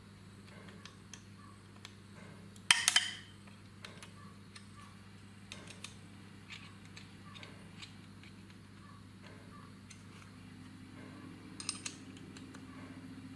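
Small metal-on-metal clicks and clinks from a machined steel puller tool being handled and fitted over a compressor shaft, with a sharp rattling clatter of several quick strikes about three seconds in and a few more clicks near the end as a hex key works in the tool. A low steady hum runs underneath.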